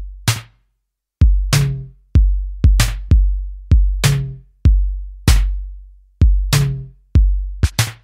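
Background music: an electronic drum beat of evenly spaced hits over deep bass, with no singing.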